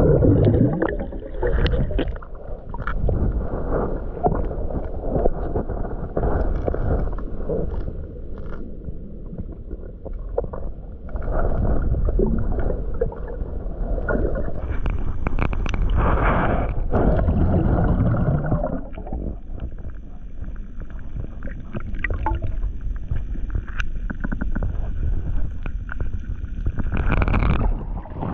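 Muffled underwater water noise from an action camera held below the surface: sloshing and gurgling with scattered knocks and bumps.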